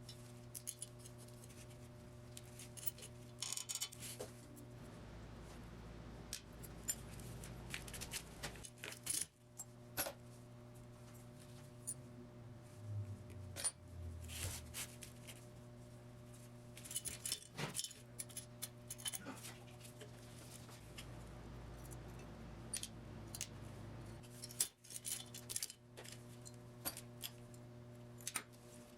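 Faint, scattered metallic clicks and clinks of small engine parts being handled as valves are taken out of a single-cylinder motorcycle cylinder head with a vice-grip valve spring compressor, over a steady low hum.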